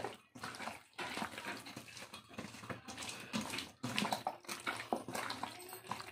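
A hand squishing and kneading chicken pieces through a thick yogurt-and-spice marinade in a steel bowl: irregular wet squelching with a few brief pauses.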